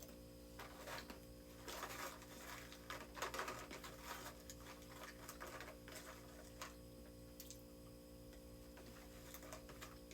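Irregular light clicks and rustling from small objects being handled, loudest in the first half, over a steady low hum with a faint regular tick.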